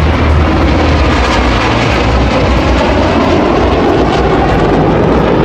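Loud, steady jet aircraft engine noise, with tones that slowly shift in pitch.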